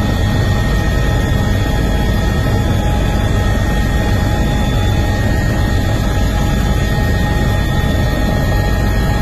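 Steady aircraft engine noise heard from inside the cabin: a constant deep rumble with a few fixed whining tones above it, unchanging throughout.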